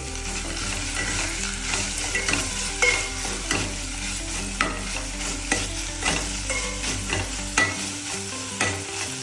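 A spice tempering (popu) with freshly ground masala sizzling in hot oil in a pan, stirred with a spoon that scrapes and clicks against the pan again and again.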